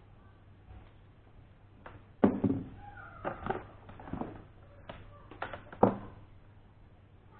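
Objects being handled and set down on a desk: a string of sharp knocks and clatters, loudest about two seconds in and again near six seconds in.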